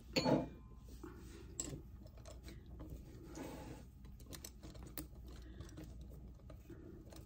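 Wing corkscrew being twisted into a wine bottle's cork: small metal clicks and light scraping as the worm turns and the wings begin to rise, with one brief louder noise at the very start.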